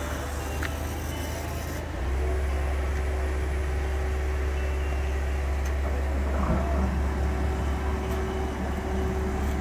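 Boat engine starting up about two seconds in, then running at a steady idle: a strong low hum with a steady drone above it.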